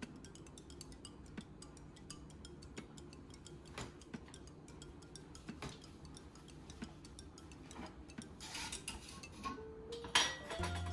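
Light kitchen clicks and ticks of a spoon against jars and a stainless steel mixing bowl while salt and sugar are measured out. Near the end come brief rattling, scraping sounds as the spoonfuls are taken and tipped into the bowl, the loudest about ten seconds in.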